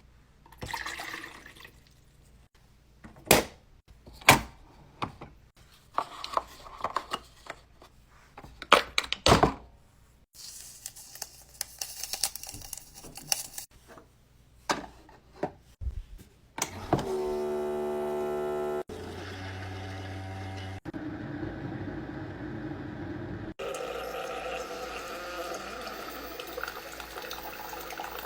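Keurig K-Mini single-serve coffee maker: a string of clicks and knocks as it is handled, then a buzzing hum as it starts brewing, followed by a steady stream of liquid running into the cup.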